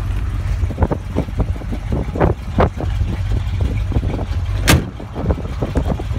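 Handling and walking noise on a handheld camera's microphone: irregular light knocks and clicks over a steady low rumble, with one sharp, loud click a little under five seconds in.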